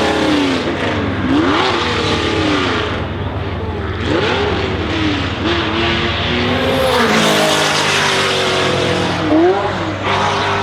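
Ferrari Challenge race car engines accelerating hard on the hill climb, pitch climbing through each gear and dropping at every upshift, several cars passing one after another.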